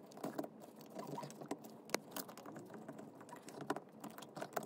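Screwdriver turning the choke cover screws on a Solex 34 PICT carburettor, tightening them down after the cold-start choke tension has been set: faint small clicks and scrapes of metal on metal, with one sharp tick about two seconds in.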